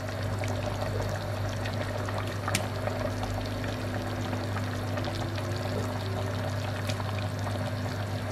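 Pot of chicken in thick walnut sauce simmering on the stove, with small bubbling pops over a steady low hum.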